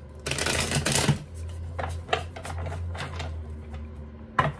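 Deck of tarot cards being shuffled by hand: a dense, rapid riffle of cards flicking together for about a second near the start, then lighter scattered taps and clicks as the deck is handled and squared, with one sharp click near the end.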